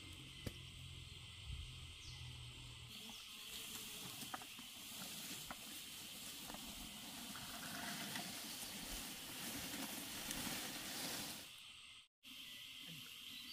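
Footsteps and rustling as two people wade through ferns and undergrowth, with scattered snaps of stems, over a steady high drone of forest insects. A low hum runs through the first three seconds.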